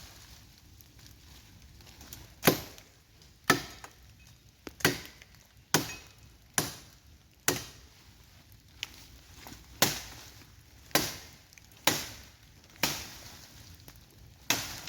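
Fallen branches being chopped with a blade: about a dozen sharp strikes into wood, roughly one a second, each dying away quickly.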